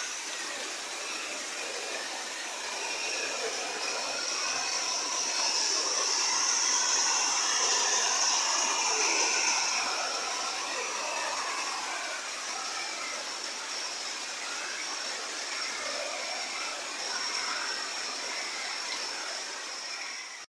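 Heavy rain pouring down with floodwater running in the street: a steady hiss of water, swelling a little a few seconds in.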